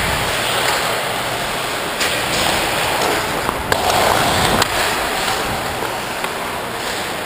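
Hockey skate blades scraping and carving on rink ice as the camera-wearer skates, with a rushing hiss of air on the microphone and a few sharp clicks.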